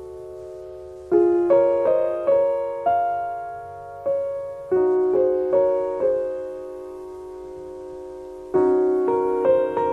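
Slow solo piano music. Struck notes and chords ring out and fade, with a single chord left to ring for several seconds before new chords come in near the end.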